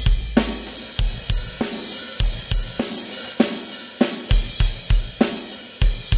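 A recorded drum kit playing a groove (kick, snare, hi-hats and cymbals), run through the X32's M/S Fair Compressor on the stereo bus. The middle is compressed harder, so the kick and snare sit a little farther back instead of right in your face.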